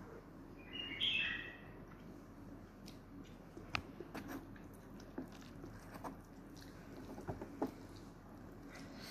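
Wooden chopsticks working a bowl of instant ramyeon noodles, with scattered light clicks and taps against the bowl. A short high squeaky chirp about a second in is the loudest sound.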